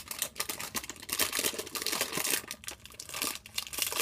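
Thin plastic wrapper crinkling and tearing as it is handled and opened by hand, in irregular rustling bursts.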